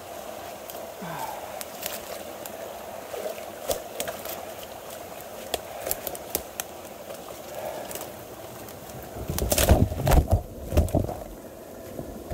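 Rubber boots stepping through leaf litter and twigs, with scattered crackles and snaps, over steady running water. About nine seconds in come several loud bumps and knocks as the camera's tripod tips over.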